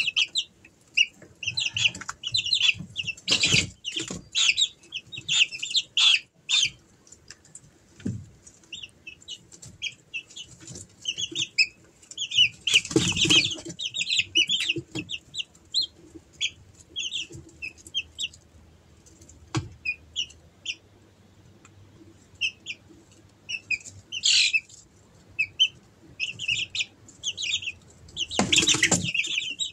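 A brood of month-old Easter Egger chicks peeping in a constant run of short, high chirps. A few brief bursts of wing flapping stand out, the longest about 13 seconds in and again near the end.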